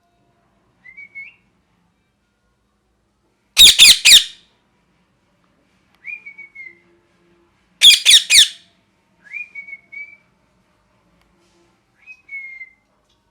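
Ringneck parrot calling: short, soft whistled notes broken twice by loud, harsh screeches, each a quick run of about three screeches, about four seconds apart.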